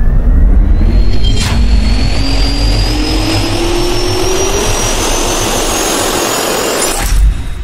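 Logo-intro sound effect of a jet engine spooling up: rushing noise over a heavy low rumble, with a whine rising steadily in pitch. It cuts off with a low thump about seven seconds in, then fades away.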